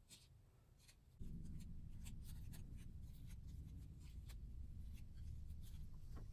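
Light scratching and small tapping sounds of hands working at close range: E6000 adhesive being spread on the sander's base. About a second in, a steady low hum suddenly comes in and continues.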